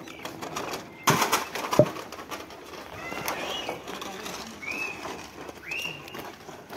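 Birds calling with short chirps that rise and fall, several times, after a loud brief clattering noise about a second in.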